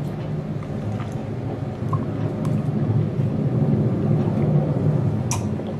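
A steady low rumble, with a few faint short clicks of swallowing as a person drinks from a plastic cup.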